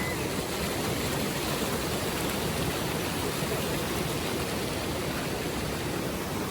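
Mountain stream water rushing steadily, an even, unbroken noise.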